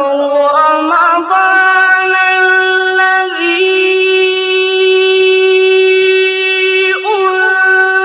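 Music: a melody of long held notes with ornamented turns at each change of pitch, the introduction to a Ramadan song.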